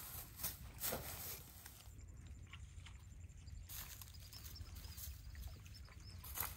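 Footsteps crunching through dry rice straw stubble, a few scattered crackly steps over a faint low rumble.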